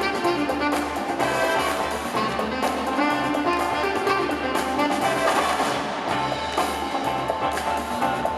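Music with brass horns playing over a steady drum beat.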